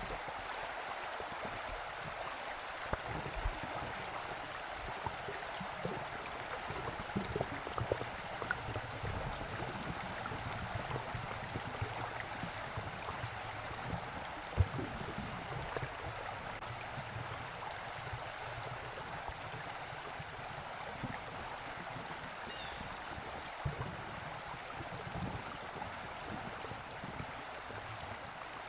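A creek flowing steadily, with a few brief, sharper sounds scattered through it, the sharpest about halfway through.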